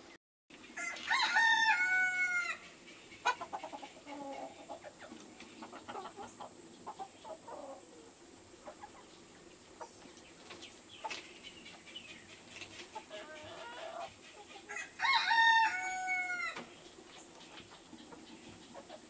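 Silkie chickens: a rooster crows twice, about fourteen seconds apart, each crow ending in a long held note, with softer clucking in between.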